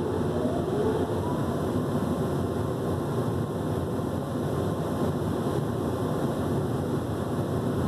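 Steady rushing noise of automatic car wash equipment, heard from inside the car's cabin, with a faint rising tone near the start.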